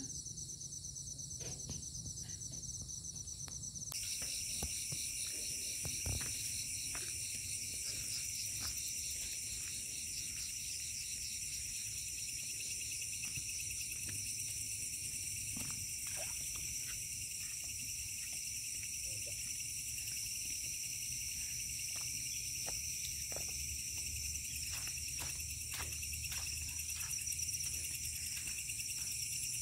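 Night chorus of crickets and other insects, a steady high-pitched trilling that grows fuller about four seconds in, with scattered faint clicks and knocks.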